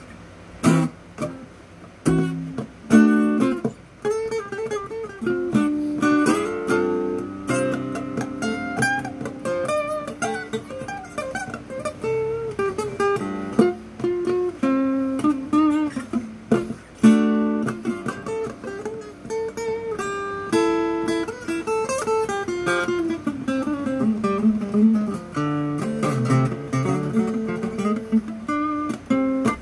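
Steel-string cutaway acoustic guitar flatpicked: a quick major-key lead of single-note runs with a few strummed chords, starting about a second in.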